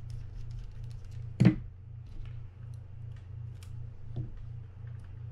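Small metallic ticks and clicks of a mini screwdriver backing tiny screws out of a Shimano Sustain 4000 spinning reel's rotor, and of tweezers handling the loose screws. A sharper knock comes about a second and a half in and a softer one near four seconds, over a steady low hum.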